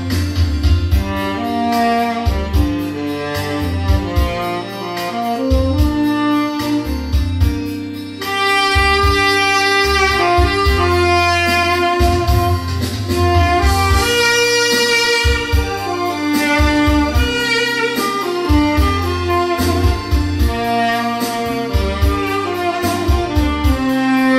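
Tenor saxophone with a metal mouthpiece playing a slow, sustained melody, recorded dry with no added effects, over a backing track with a steady bass pulse. The playing grows fuller and louder about eight seconds in.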